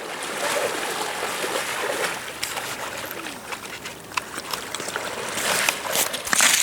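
Water rushing and splashing, with a run of sharp splashes and a louder splash near the end.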